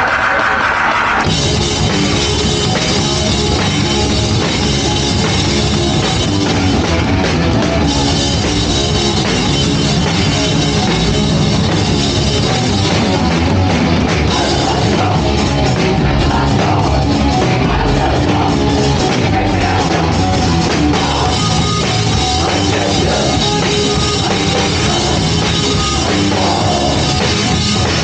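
Live punk band playing loud rock music with drums, kicking in about a second in.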